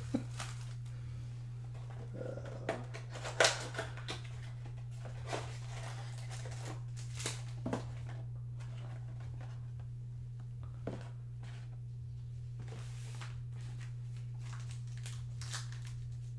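Cardboard Panini Prizm football blaster box being opened by hand: scattered rustles, scrapes and taps of cardboard and foil packs, the loudest about three and a half seconds in, over a steady low hum.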